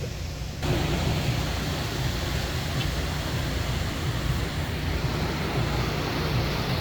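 Steady rush of river rapids mixed with wind rumbling on the microphone, getting suddenly louder a little over half a second in.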